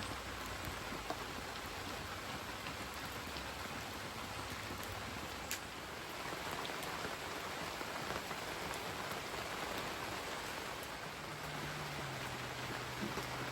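Steady rain falling, an even hiss of drops with scattered small ticks; a faint low hum comes in near the end.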